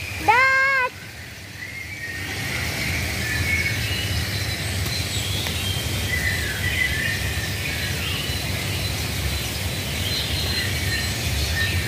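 A single loud call from a peafowl, about half a second long, rising at its start and then held, right at the beginning. Then many small birds chirp and twitter over a steady low background hum.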